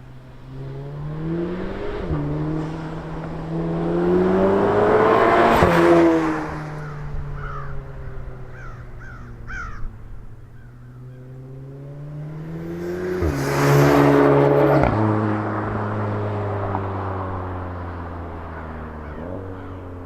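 A MK7 Volkswagen Golf R's turbocharged 2.0-litre four-cylinder accelerates hard twice through its exhaust. The note rises in pitch and drops suddenly at each gear change, then falls away as the car eases off between the two pulls.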